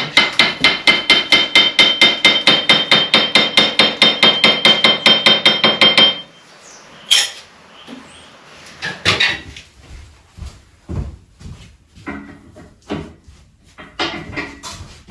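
A hammer striking metal in a fast, even run of about six blows a second, each blow ringing, stopping about six seconds in; after that come scattered, lighter knocks and clatters.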